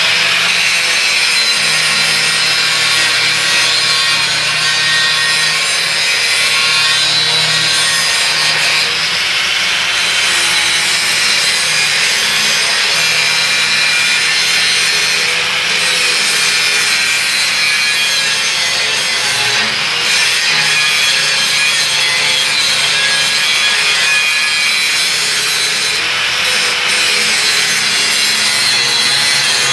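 Angle grinder grinding a steel workpiece, a continuous harsh abrasive sound with the motor's hum wavering as the disc is pressed on: the metal is being ground clean and smooth before welding a T-joint.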